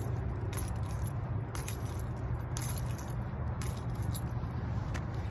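Keys jingling in short, irregular shakes about once a second as a person moves around, over a steady low rumble.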